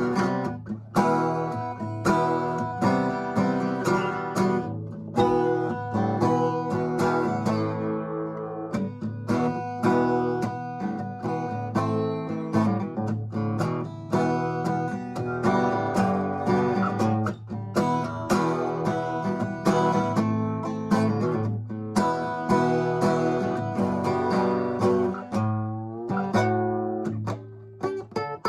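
Acoustic guitar playing, plucked notes and strummed chords in a steady rhythm.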